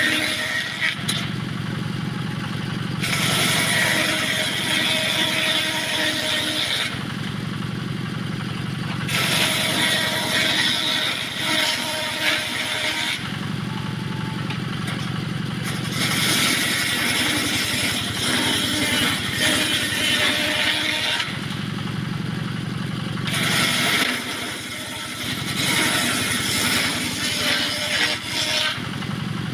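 Engine-driven homemade circular saw running continuously and cutting small teak offcuts into battens: about five cuts of several seconds each, a loud high rasping during each cut and the engine's lower drone between them.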